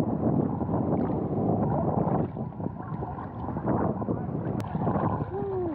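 Ocean waves sloshing and splashing around a camera held just above the water, with wind on the microphone. A brief chirp-like glide sounds near the end.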